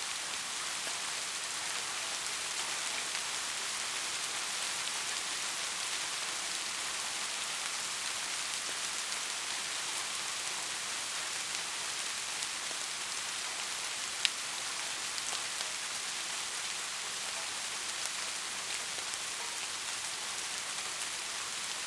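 Steady heavy rain: a dense, even hiss with scattered sharp drop ticks, and one louder tick about two-thirds of the way through.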